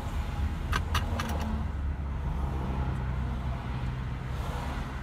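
Low, steady rumble of a car's engine and road noise heard inside the cabin in slow traffic, with a quick run of three or four sharp clicks about a second in.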